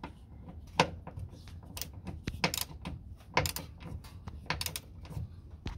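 Hand ratcheting wrench clicking in short runs about once a second as 12 mm nuts are turned down by hand, snug plus a sixteenth of a turn.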